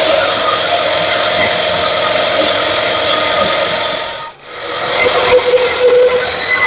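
18-inch bandsaw ripping a thick wooden block fed on its sliding trolley: the blade rasps steadily through the wood over the machine's running noise. The sound drops away briefly about four seconds in, then comes back with a steadier tone.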